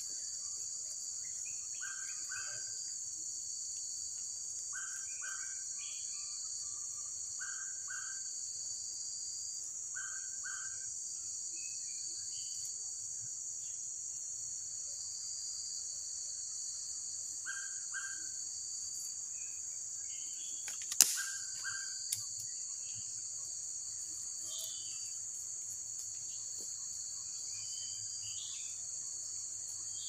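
Steady, high-pitched drone of tropical rainforest insects, with short two-part calls repeating every two or three seconds. A sharp snap about two-thirds of the way through is the loudest sound, followed by a smaller one a second later.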